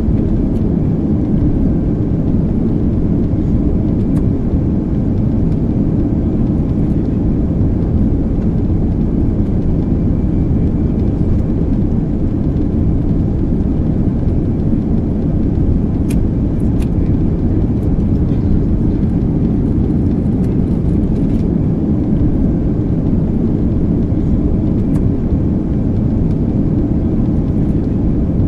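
Steady drone of an airplane in flight heard from inside the cabin: engine and airflow noise, deep and unchanging.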